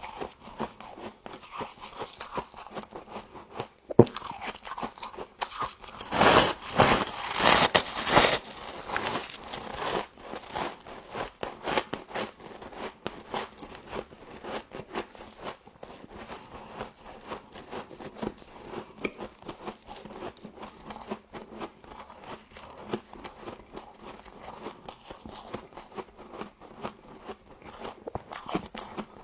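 Frost being bitten and chewed close to the microphone: a steady run of small crunches, with a loud burst of crunching about six to eight seconds in and one sharp click about four seconds in.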